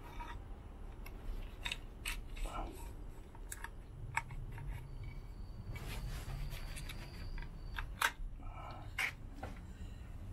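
Light clicks and taps of a road bike's carbon fork steerer and headset parts being handled, scattered through, with two sharper clicks about eight and nine seconds in.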